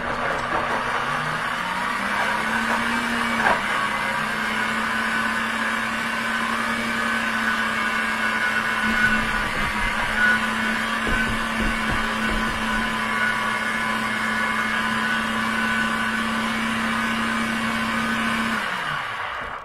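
Countertop blender motor spinning up over about two seconds, then running steadily and loud as it grinds dry bread chunks into breadcrumbs. Near the end it is switched off and winds down to a stop.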